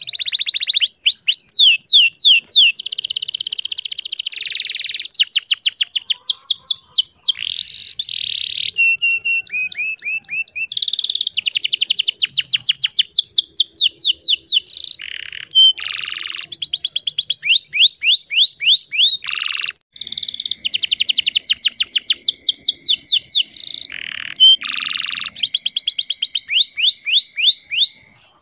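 Domestic canary singing a long, unbroken song: fast trills and rolls of repeated chirps that switch to a new phrase every second or two, broken by a few lower, drawn-out notes.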